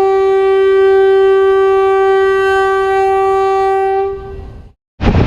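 A horn blowing one long steady note that fades out about four seconds in, followed by a short gap.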